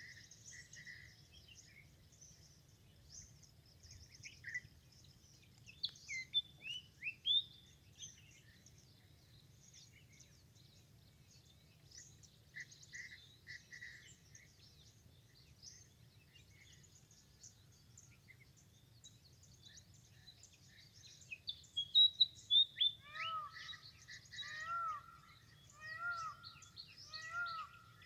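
Several songbirds chirping and singing, with quick high notes and trills throughout. Near the end a louder bird gives a downward-sliding call about once a second. A faint low steady hum lies underneath.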